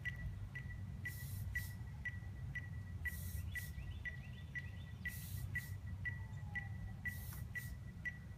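Outdoor ambience: a short high chirp repeating evenly about twice a second, and a brief buzzing hiss about every two seconds, over a steady low rumble.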